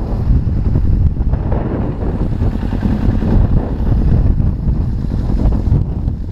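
Wind buffeting the microphone: a loud, gusty low rumble that rises and falls without any steady pitch.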